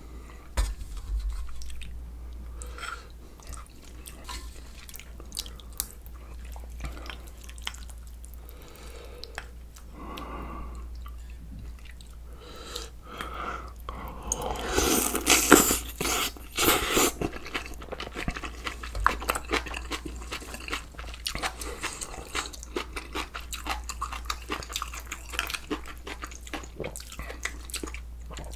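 Close-miked mukbang eating sounds: a man chewing and crunching through spicy beef offal soup with rice, kimchi, raw onion and green chillies, with many crisp clicks and crackles. The crunching is loudest for a few seconds just past the middle.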